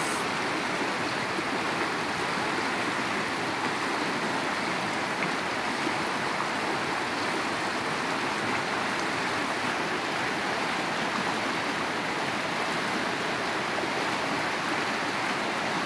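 A fast-flowing stream rushing steadily, an even hiss of moving water that does not let up.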